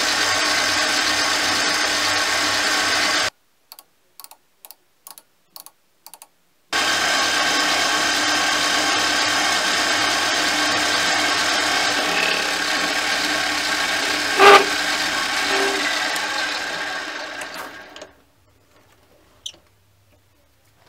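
Mini lathe running steadily, its motor and gear train whining as a carbide insert turns a 42CrMo4 steel shaft. There is a short pause with a few faint ticks, then a steady run again with one sharp metallic clink midway, before the lathe winds down and stops near the end.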